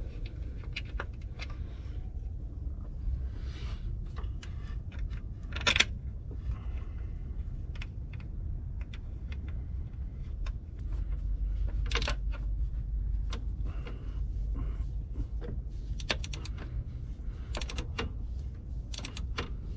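Irregular light metallic clicks and clinks of an 8mm socket or wrench working on the bolts of a sound symposer delete plate as it is fitted and tightened down, over a steady low rumble.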